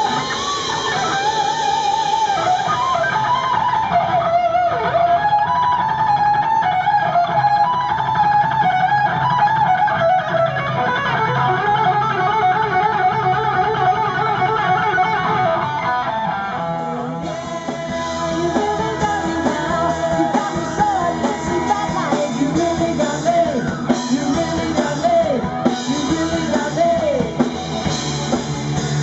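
Live rock band playing an instrumental stretch, led by an electric guitar playing bent and wavering notes over bass and drums. About 17 seconds in, the lead line drops into a lower register.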